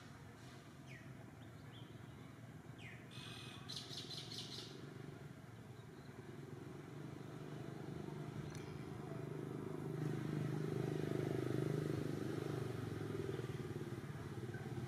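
A steady engine hum, like a motorbike's, that grows louder from about ten seconds in. Birds chirp a few times and give a short trill in the first five seconds.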